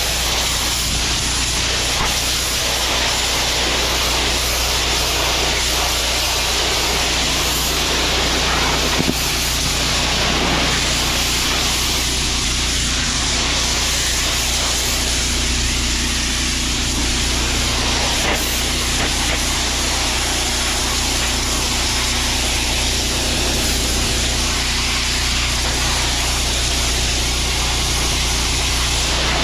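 Pressure washer wand spraying through a 40-degree tip onto brick, a steady hiss of water jetting against the masonry to knock down green growth and cement residue. A steady low hum runs underneath.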